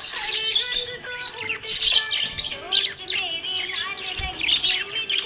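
Budgerigars chirping and warbling in a rapid, continuous chatter of short high notes.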